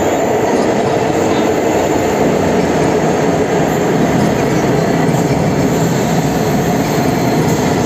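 Cercanías electric commuter train running, a steady loud rumble that holds even throughout.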